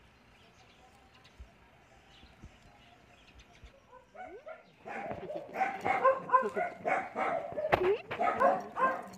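Dogs barking and yipping in quick succession, starting about halfway through after a quiet stretch, with a short rising whine just before.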